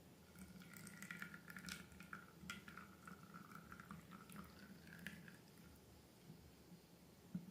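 Faint wet, sticky crackling and small clicks of slime being squished and worked, over a steady low hum.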